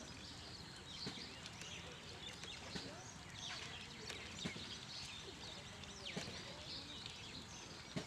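Outdoor ambience: many short, high bird chirps and calls scattered through, with light knocks over a steady background hiss.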